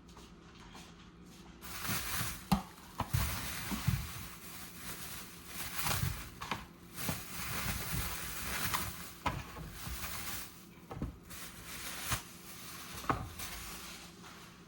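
Kitchen work sounds: a steady hiss that starts about two seconds in, broken by knocks and clatters of dishes, utensils and cupboards.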